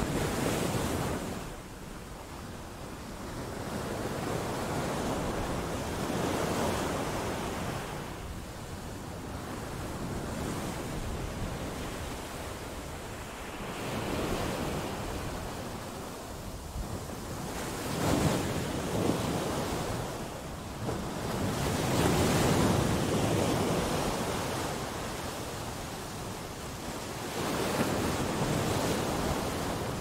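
Sea waves breaking against rocks and washing back, surging in swells about every four seconds, the loudest of them a little past halfway.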